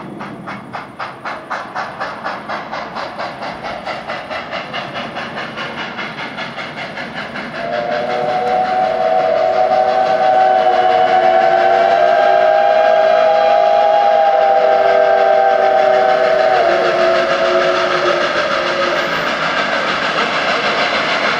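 Steam locomotive 141.R.1244, an ex-SNCF 2-8-2 Mikado, chuffing with an even exhaust beat of about three chuffs a second. About seven seconds in, its steam whistle sounds one long chord of several notes, held for about nine seconds over the ongoing chuffing.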